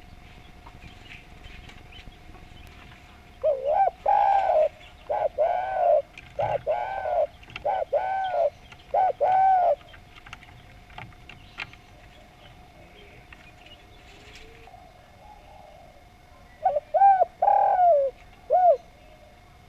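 Spotted dove (derkuku) cooing: a phrase of about six arched, rising-and-falling coos, then after a pause a shorter phrase of three or four coos near the end.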